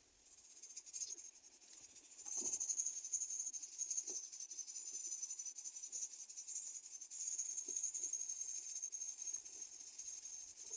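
High-pitched insect trill, a steady fast-pulsing buzz that swells in about two seconds in and holds. A few faint soft knocks sound underneath.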